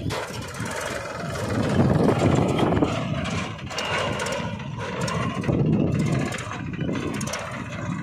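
Small engine of a homemade mini tractor, built as a Mahindra 275 DI replica, running as the tractor drives along towing a trolley. It gets louder about two seconds in and again near six seconds.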